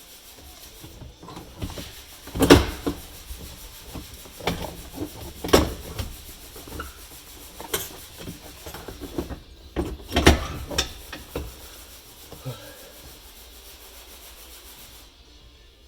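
Irregular clunks, knocks and scraping of hand tools and metal parts being worked under a car's dashboard, while the clutch pedal assembly is refitted. The loudest knocks come about two and a half, five and a half and ten seconds in.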